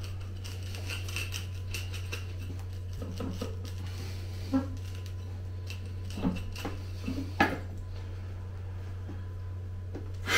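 Metal root rake scraping and picking at a tightly compacted, root-bound root ball, with scattered scratchy clicks and a few sharper knocks, over a steady low hum. The root mass is so dense the tines barely get in.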